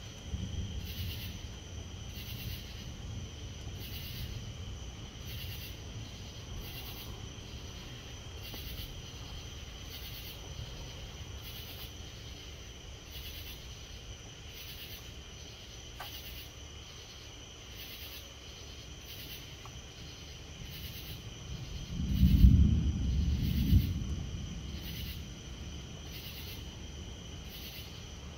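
Night insects chirping in a steady pulse about once a second, over a low steady background noise. About 22 seconds in, a low rumble of thunder swells twice over a couple of seconds, the loudest sound here.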